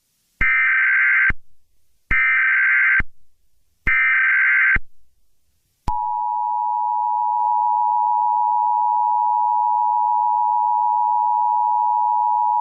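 Emergency Alert System tones: three short bursts of the SAME digital data header, each about a second long with a pause between, then the steady two-tone EAS attention signal starting about six seconds in. The tones announce that an emergency alert message is about to follow.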